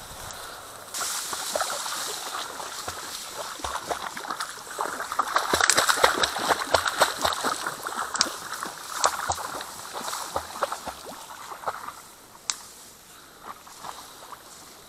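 A person pushing through dense reeds at the edge of shallow water: reed stems crackling and rustling as they brush past, with sloshing steps in the water. It is busiest in the middle, thins out near the end, and gives one sharp snap.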